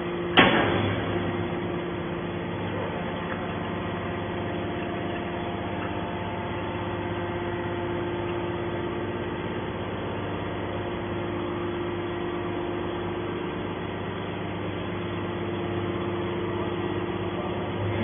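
Hydraulic scrap metal baler running: a sharp bang about half a second in, then the steady hum of its hydraulic pump and motor as the ejection ram pushes the compressed bale out of the chamber.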